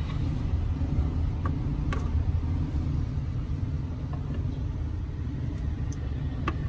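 A steady low rumble, with a few short sharp clicks of a kitchen knife cutting through a green-dough-wrapped banana onto a plastic cutting board: a couple about two seconds in and another near the end.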